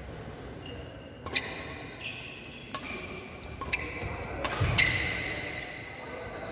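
Badminton rackets striking a shuttlecock back and forth in a doubles rally: about five sharp hits roughly a second apart, each with a brief ringing ping from the strings. The hardest hit comes near the end and echoes in the large hall.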